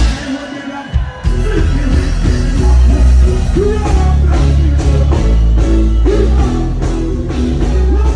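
Live band music played loud, with a voice singing over it. It opens with a sharp hit, and a heavy bass line comes in about a second in.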